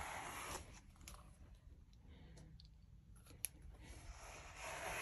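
Grooming brush raking through a smooth collie's shedding undercoat: soft scratchy strokes at the start and again near the end. A sharp click about three and a half seconds in.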